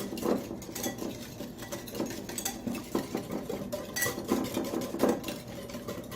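A utensil clinking and scraping against a bowl in a quick, irregular run of small knocks, stirring the lemon salad dressing.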